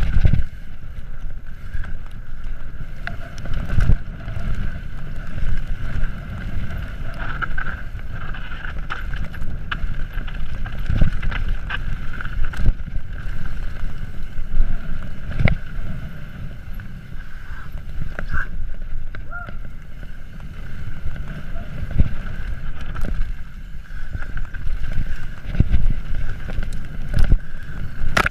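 Mountain bike descending a rough dirt trail: wind buffeting the microphone and the bike rattling, with sharp knocks now and then as it hits bumps and roots. A steady high hum runs underneath.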